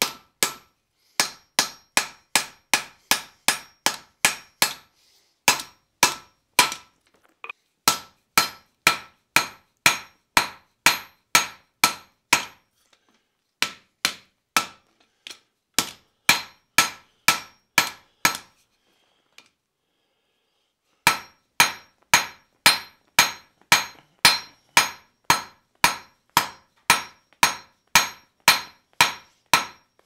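Hand hammer striking red-hot iron on an anvil, about two blows a second, each blow with a short metallic ring: the arms of a cross split from a square bar being forged flat. The runs of blows break for short pauses, with a longer silent gap about two-thirds of the way through.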